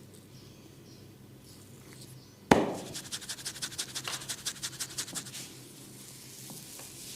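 Hands striking a head during a massage: one sharp, loud smack about two and a half seconds in, then a quick run of rhythmic taps, about eight a second, lasting a little over two seconds.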